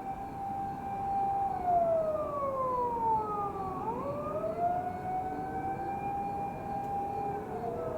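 Fire-brigade warning siren wailing: a tone held high, sliding slowly down through a couple of seconds, swinging back up and holding high again before starting to fall near the end. A second siren at a different pitch overlaps it, sounding its fire-outbreak alarm.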